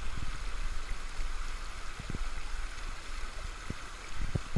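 Creek water running steadily over a shallow rocky riffle, with a constant low rumble underneath and a few soft low thumps from wading in the water.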